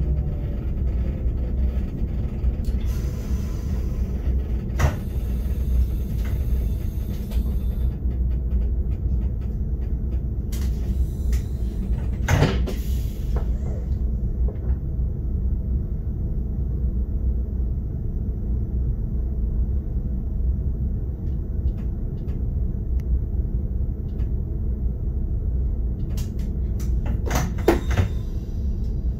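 Steady low rumble of an RBDe 560 'Domino' electric multiple unit running on the line, heard from the driver's cab, with a few short knocks and clatters about three to eight seconds in, around twelve seconds and near the end.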